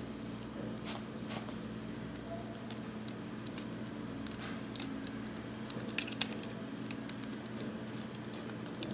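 Light plastic clicks and taps of a Transformers Generations Deluxe Cliffjumper action figure's parts being pulled out and folded by hand, with one sharper click near the middle, over a faint steady hum.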